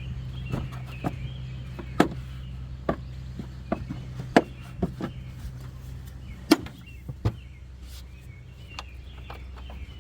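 Plastic air filter box lid and clips being pushed and snapped onto the box, a string of sharp clicks and knocks, the loudest about two, four and six and a half seconds in. The lid is not seating because the air filter is not sitting down in the box.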